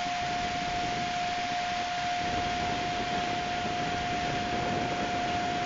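MRCE Dispolok ES 64 F4 (Siemens Class 189) electric locomotive passing slowly, a steady high whine held at one pitch over the rumble of its wheels on the rails.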